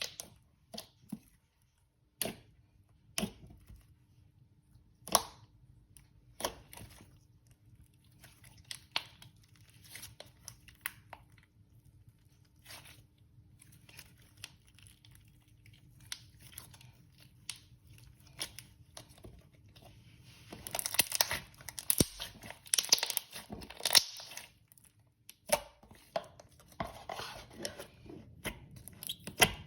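Thick slime being poked, pressed and stretched by hand, giving scattered sharp pops and sticky crackles that come thick and fast in the last third.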